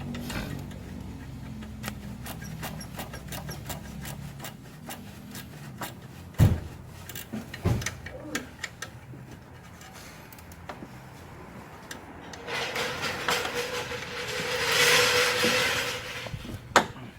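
Power steering noise as the wheel is turned: clicks and two sharp knocks, then for about three seconds near the end a rasping hiss with a steady whine, heard when the steering reaches its stop.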